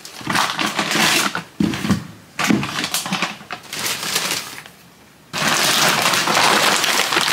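Plastic grocery bag and snack packaging rustling and crinkling as groceries are unpacked. It comes in several short bursts, then after a brief pause there is a longer, steady stretch of loud crinkling from about five seconds in.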